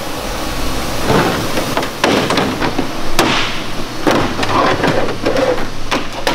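Thermoformed ABS plastic sheet being scored and broken off by hand: irregular sharp cracks and knocks with bursts of scraping.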